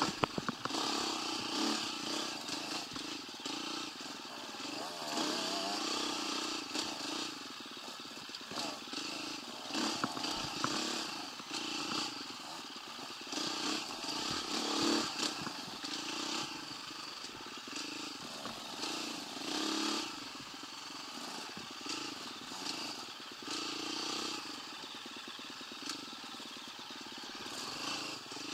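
A 125cc motorcycle being ridden, its engine note rising and falling as the throttle is worked, with a few sharp knocks at the very start.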